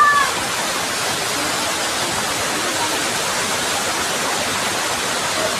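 Waterfall cascading over rocks: a steady, even rush of falling water, with a brief high tone at the very start.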